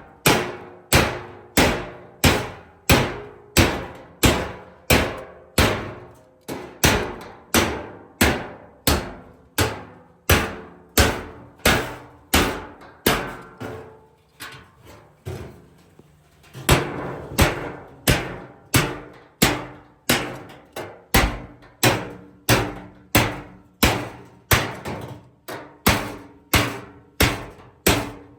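Hand hammer striking sheet steel in a steady rhythm of about two ringing blows a second, with a pause of about two seconds midway.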